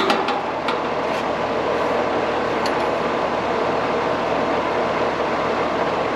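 Steady whirring hum of air-conditioning equipment running, with a few light metallic clicks in the first second and one more a little under three seconds in.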